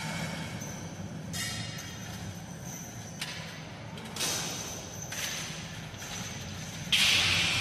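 Sparse metallic percussion from the show's soundtrack: about five clanging strikes, each ringing on, over a low steady drone, the loudest strike near the end.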